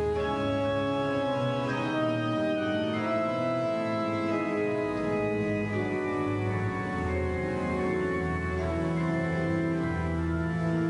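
Slow keyboard music in sustained chords with an organ-like tone, the held notes changing every second or two.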